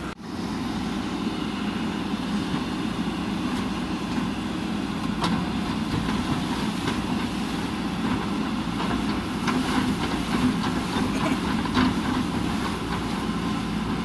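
JCB backhoe loader's diesel engine running steadily as the backhoe bucket works, with a few sharp knocks and cracks of the concrete culvert slab being broken, clustered in the second half.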